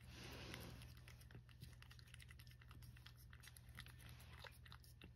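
A cat licking a churu paste treat from a dish: a fast, irregular run of faint little clicks of the tongue, over a steady low hum.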